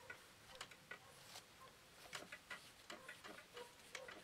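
Faint, irregular clicks and light rubbing as a cotton cloth is wiped over the metal parts of an air rifle.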